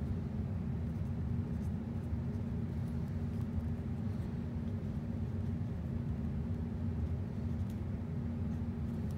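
Steady low rumble with no change in level, and a few faint ticks over it.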